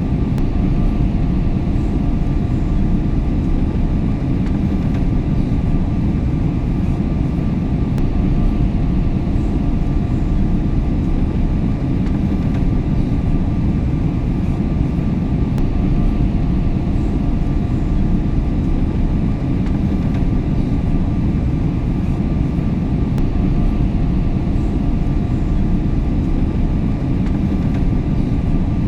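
Steady low rumble of an airliner cabine in cruise flight: constant engine and airflow noise with a faint, even hum above it.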